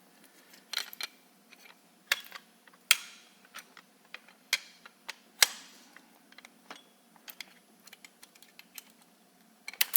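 Irregular sharp clicks and knocks of small hard parts being handled and fitted together while a saddle part is assembled. The loudest knock comes about halfway through, with lighter ticks after it and a quick cluster near the end.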